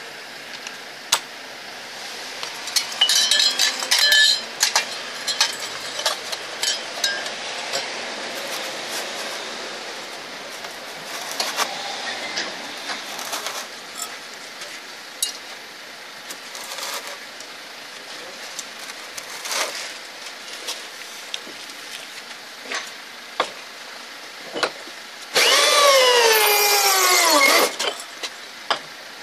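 Metal hole-cutter bits clicking and clinking as they are handled and fitted to a drill. Near the end a DeWalt corded rotary hammer drill runs for about two seconds, its whine falling in pitch, as a hole cutter bores into extruded polystyrene foam insulation board.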